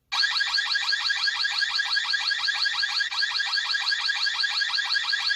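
Soosan Hometech COB-380 gas alarm sounding its electronic siren, a loud, fast-repeating warble that starts suddenly. It is set off by the cigarette smoke, and it alternates with the spoken warning 'gas exposure detected'.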